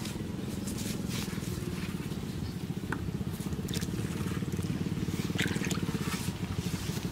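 A small engine running steadily with a low, even rumble.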